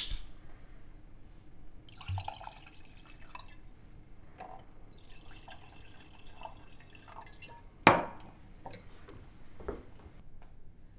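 Wine poured from a bottle into wine glasses, the liquid splashing into the glass for several seconds. Near the end of the pouring comes one sharp, loud knock of glass, and a softer one a couple of seconds later.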